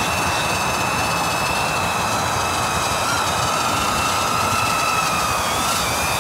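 BetaFPV Aquila16 FPV quadcopter in flight, its small brushless motors and propellers giving a steady high whine over a loud rushing hiss. The whine shifts a little in pitch as the throttle changes, with a second, lower tone joining about halfway through.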